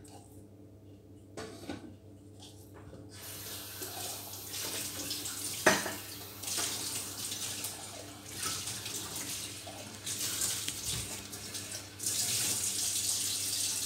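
Water running from a tap, starting about three seconds in and louder near the end, with one sharp knock about six seconds in.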